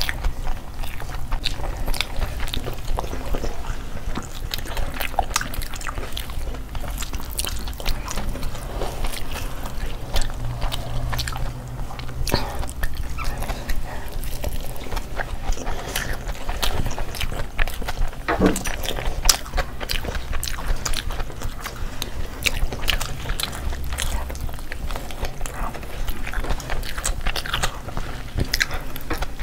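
Close-miked eating sounds of several people chewing chicken and fried rice eaten by hand: frequent wet smacks and mouth clicks throughout, over a steady low hum.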